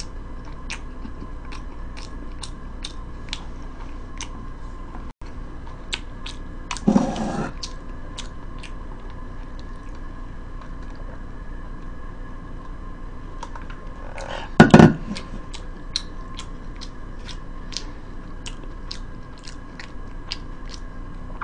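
A person chewing a fish sandwich close to the microphone, with small crisp chewing clicks a couple of times a second. Two louder short bursts come about 7 s and 15 s in.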